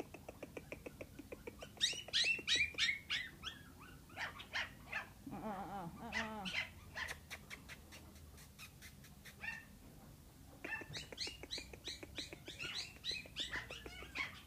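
Pomeranian puppies yipping and whining in rapid runs of short, high-pitched calls that slide down in pitch, with a quieter spell in the middle.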